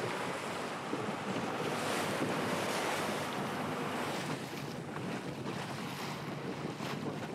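Strong wind buffeting the microphone over choppy sea, with waves and churned water rushing and splashing past a small boat. The noise is steady, rising and falling in gusts.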